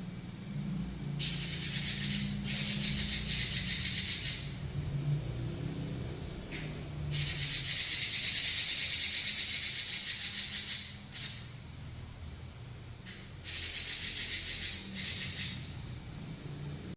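Pekin robin (red-billed leiothrix) singing long rolling trills: three stretches of rapid, high-pitched trilling, the middle one about four seconds long, over a low steady hum.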